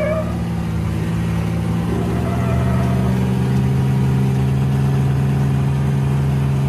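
Jeep Cherokee's engine revved up and held at steady high revs as it pulls under load, being winched up a rock ledge with its tyres spinning.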